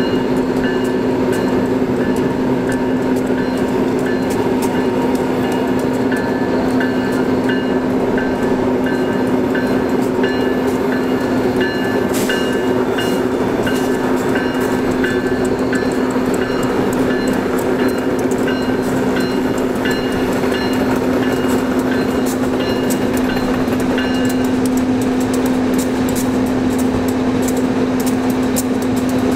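A steady diesel engine drone, with a locomotive bell ringing over it roughly twice a second. The bell stops about 24 seconds in.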